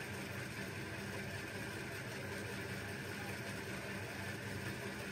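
Kyocera 2040dn laser printer running with a steady, even hum as it prints a status page. The machine is working again after its C6220 error was cleared.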